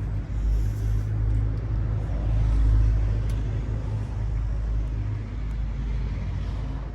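Electric mechanical polisher running with a steady low hum, its level swelling and easing as it works cutting compound over a plastic headlight lens.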